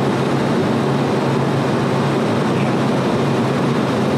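Steady machine drone of running refrigeration equipment, compressors and fans, with a constant low hum.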